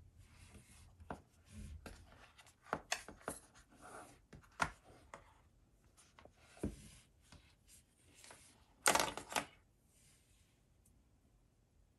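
Cardboard packaging of an Apple Pencil box being handled: the inner tray slid out of its sleeve with rubbing and scraping, and irregular clicks and taps. The loudest is a short cluster of scrapes about three-quarters of the way through, as the pencil is lifted out of its tray.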